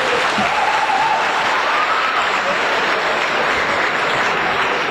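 A crowd applauding: dense, steady clapping of many hands, with faint voices calling out in it.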